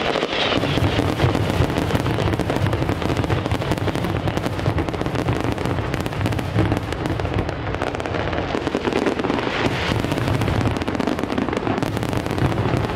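Fireworks display going off in a rapid, unbroken volley of bangs and crackling, with no pause.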